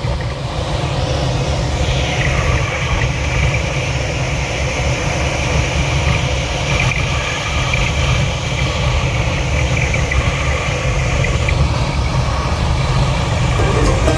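Steady rushing rumble of airflow in an engineless glider's cockpit as it comes in to land.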